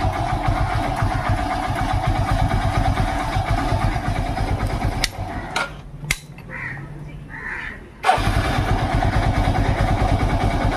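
Hero Splendor iSmart's single-cylinder four-stroke engine started on its electric self-starter and running. It stops about six seconds in and is self-started again about two seconds later. The starter is now free of the odd noise it made before, its armature end freshly greased.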